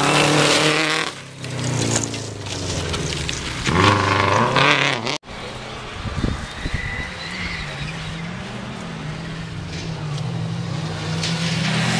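Subaru Impreza WRX rally car's turbocharged flat-four engine revving hard as it passes on gravel, its pitch rising and falling with throttle and gear changes. The sound cuts out abruptly about five seconds in, then another rally car's engine is heard from further off, wavering in pitch and growing louder near the end.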